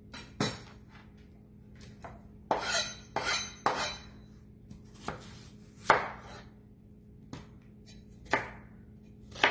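Kitchen knife dicing an onion: sharp, irregular chops, a quick run of them between about two and a half and four seconds in, then single strokes about a second apart.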